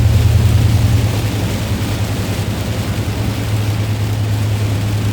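Inside a car driving in rain: a steady low drone of engine and tyres on the wet road, with a constant hiss of rain on the car.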